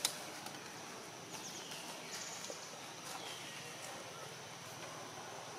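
Outdoor forest ambience: a steady high insect drone, with a few faint high calls that slide down in pitch and a sharp click just at the start.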